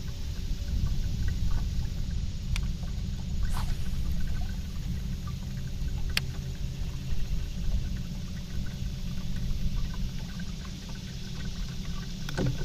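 Outdoor ambience on a small boat on a river: a steady low rumble of water and wind noise with a faint steady hum underneath, broken by a few sharp clicks from handling the fishing rod and reel.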